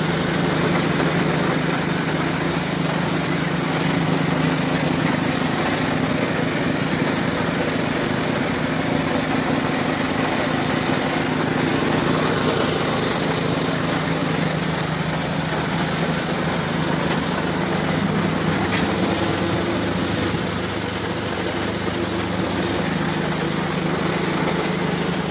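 Tomato washing and sizing machine running: a steady motor hum drives the conveyor, chains and rotating sizing rollers, with washer water rushing underneath.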